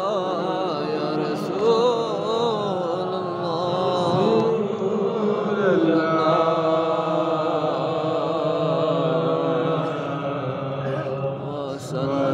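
A man's solo voice chanting a devotional manqabat into a microphone, in long drawn-out notes that waver in pitch, then hold steadier.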